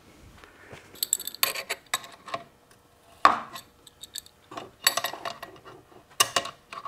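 Steel parts clinking and scraping irregularly inside a Ford Toploader four-speed transmission case as the reverse shift rail is rotated to line up with its fork.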